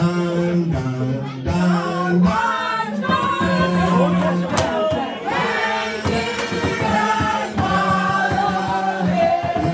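A song with a choir of voices singing held notes to a musical accompaniment.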